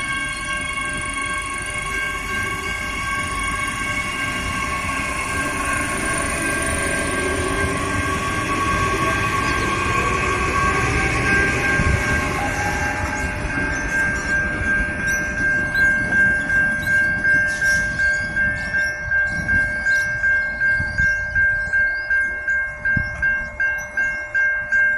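Adelaide 4000 class electric multiple-unit train running through the station with rail rumble and a steady electrical whine. From a little past halfway, a level-crossing warning bell rings in quick, even pulses, about three every two seconds.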